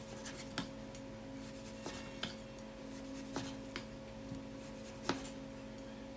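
Chinese cleaver slicing partly frozen beef into thin pieces on a wooden cutting board: faint, irregular taps as the blade meets the board, about six of them, over a low steady hum.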